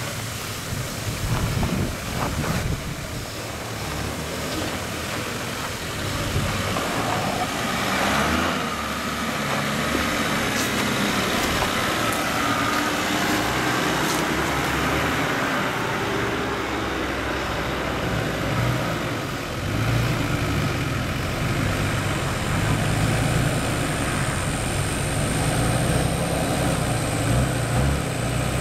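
Turbo-diesel 4WD engines running at low revs as the vehicles crawl through deep ruts: a Toyota Land Cruiser passes close by in the first half, and a Nissan Patrol's engine grows louder near the end as it comes toward the microphone.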